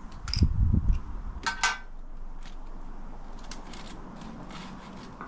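Handling noise: low knocks in the first second, then a few sharp, light metallic clicks and some scattered faint ticks over a steady low background.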